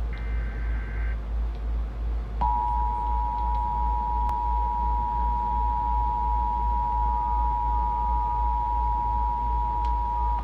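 Emergency Alert System tones: the end of a burst of warbling SAME header data tones in the first second, then, about two and a half seconds in, the two-tone attention signal starts and holds steady, two pure tones sounding together. A steady low hum runs underneath.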